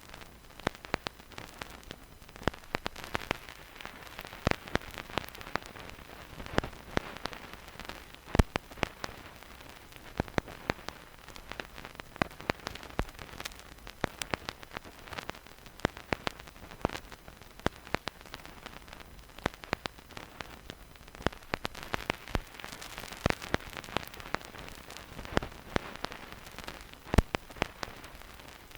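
Vinyl record surface noise with no music: a stylus in the groove gives dense, irregular crackles and pops over a soft steady hiss, with a few louder pops here and there.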